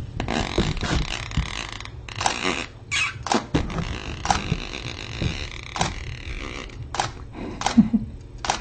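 Rustling and handling noise, with scattered sharp clicks and knocks, of things being moved about close to the microphone.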